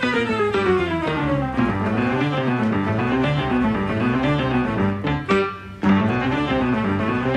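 Instrumental background music: a falling run of notes, then a quick, bouncing figure of rising and falling notes that briefly breaks off about two-thirds of the way through.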